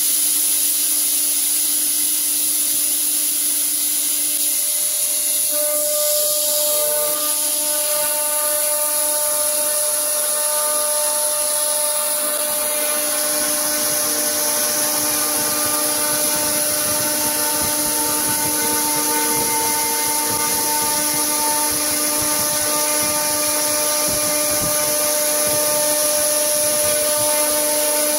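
EagleTec CNC wood router spindle running at high speed with a long end mill cutting through a 90 mm thick solid wood beam. It is a loud, steady high whine over the rasp of the cut. About five seconds in, several steady tones join the sound and hold as the cutter works along the beam.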